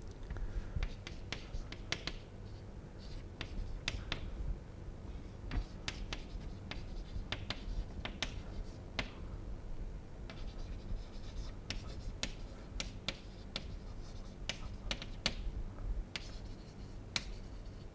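Chalk writing on a chalkboard: irregular sharp taps and short scratching strokes as letters are written out.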